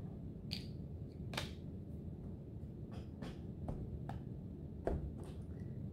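Light, scattered clicks and taps, about seven over a few seconds, as small plastic lids and containers are picked up and pressed onto paper as paint stamps, over a steady low room hum.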